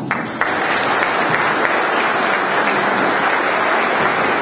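Audience applauding: a steady patter of many hands clapping.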